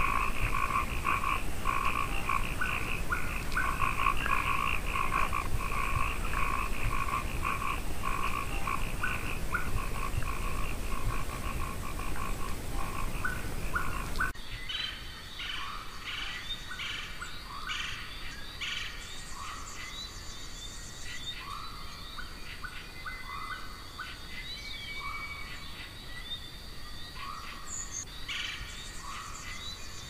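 Frogs calling in a dense chorus of rapid, repeated chirping notes. About halfway through it cuts abruptly to a quieter mix of scattered short calls over a steady high-pitched drone.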